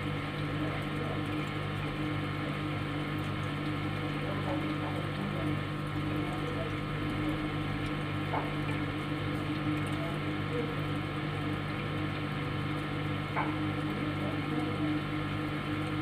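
Refrigerator running: a steady hum made of several fixed tones, with two faint clicks about halfway through and near the end.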